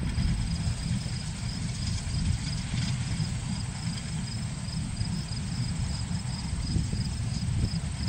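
Insects chirping in a steady, evenly pulsing high rhythm over a loud, irregular low rumble.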